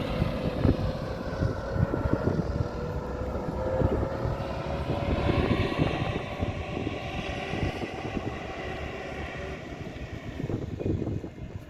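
A steady engine drone whose tone rises slowly, passing and fading near the end, over irregular low rumbling.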